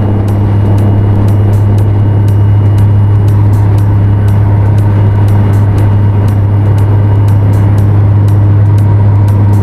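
Propeller-driven aircraft engine running at full power on the takeoff roll: a loud, steady drone with a low hum, heard from outside the plane with wind rushing over the microphone.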